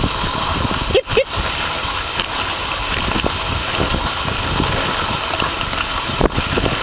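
A dog sled moving over snow behind a running four-dog team: a steady rushing hiss, briefly dipping about a second in and again near the end.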